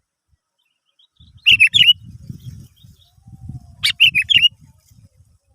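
Sooty-headed bulbul (kutilang) singing two short chirping phrases about two and a half seconds apart, over low rumbling noise, with a sharp click just before the second phrase.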